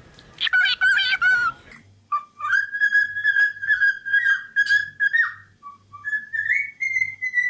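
Pet parrot whistling. A quick warbling chatter comes about half a second in, then a long whistled tune of held notes that steps up in pitch near the end.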